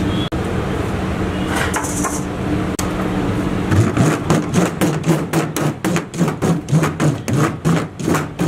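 Fingertips docking rolled-out pizza dough on a steel counter: quick, even thumps at about three a second that start about four seconds in, over a steady background hum.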